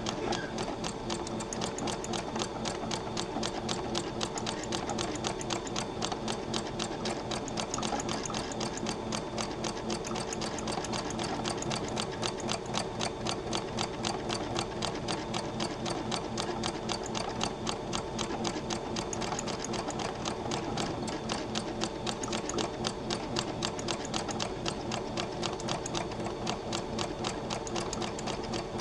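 Computerized domestic sewing machine stitching steadily through thread-covered needlepoint canvas, a fast, even run of needle strokes that keeps going without a pause.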